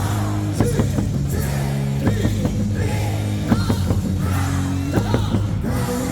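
Rock music playing over a baseball stadium's loudspeakers.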